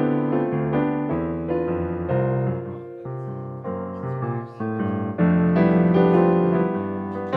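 Piano music: chords and melody notes changing quickly, getting louder about five seconds in.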